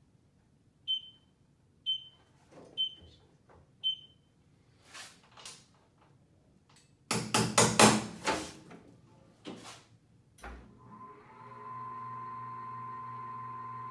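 Wheel balancer beeping four times, about a second apart, as the tyre is turned by hand. This is followed by handling knocks and the loud clatter of the balancer's wheel hood being lowered. A few seconds later the balancer's motor spins the wheel for the calibration run, a steady hum with a constant whine.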